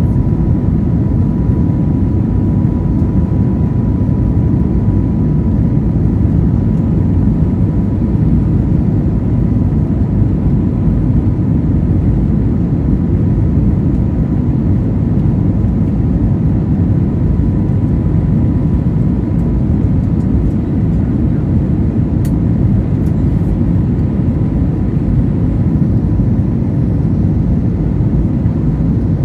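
Jet airliner at takeoff power heard from inside the passenger cabin: a loud, steady deep rush of engine and air noise with a thin, steady high whine over it.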